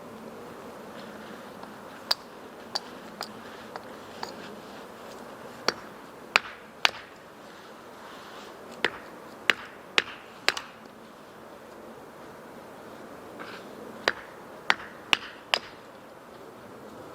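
Wood fire crackling: sharp, irregular pops and snaps from burning firewood over a steady hiss, with clusters of pops around six to seven seconds in, around nine to ten and a half seconds in, and around fourteen to fifteen and a half seconds in.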